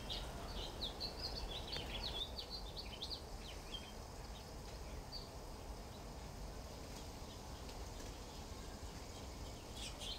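Faint chirping of small birds in quick runs of short high notes, busiest in the first few seconds and sparse after, over a low steady background hum.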